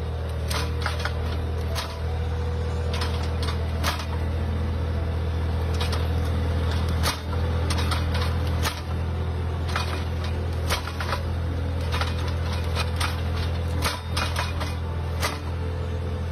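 Tractor engine running steadily while a Kadıoğlu sensor-arm disc hoeing machine cultivates between vines. Irregular sharp clicks and knocks from the implement come every second or so.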